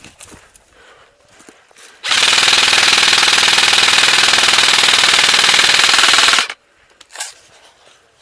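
Airsoft electric gun (AEG) firing one long full-auto burst of about four seconds, a rapid, even rattle that starts and cuts off suddenly, very loud and close.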